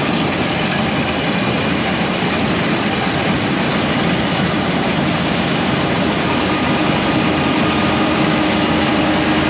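1480 combine harvester running steadily under harvest load, a constant machine noise with a faint steady hum through it.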